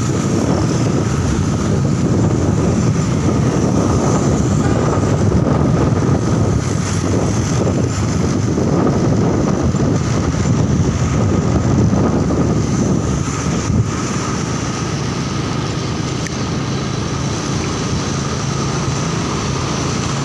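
Steady wind rushing over the microphone and a motorcycle engine running with a low hum, recorded while riding the motorcycle through traffic.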